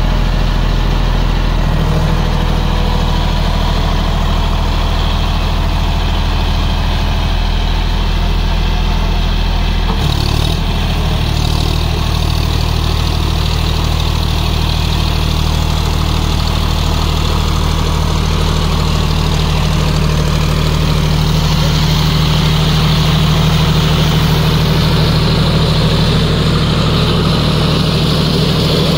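John Deere 5050D tractor's three-cylinder diesel engine running steadily under load while driving a rotavator through wet mud. The engine note changes abruptly about ten seconds in.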